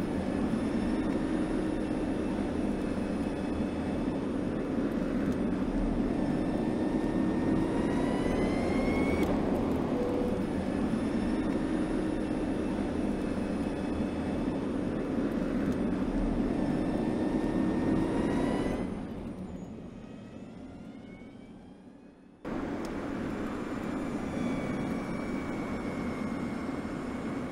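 Audi A6 Avant e-tron concept's synthesized electric drive sound: a steady low hum with higher tones layered above it, over a hiss. The higher tones glide up in pitch twice. The sound fades away about two-thirds of the way through and then cuts back in suddenly.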